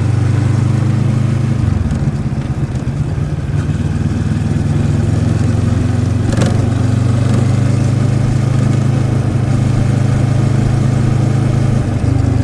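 Moto Morini X-Cape's 650cc liquid-cooled parallel-twin engine running at steady throttle while riding. The engine note dips about two seconds in, then holds steady. There is a short click near the middle.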